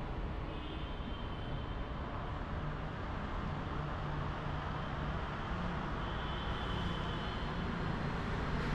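Steady road-traffic noise, a continuous low rumble with a faint engine hum.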